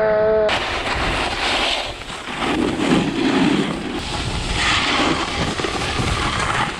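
Wind rushing over the action camera's microphone at riding speed, mixed with the hiss and scrape of a snowboard's edges on packed snow, swelling with the turns.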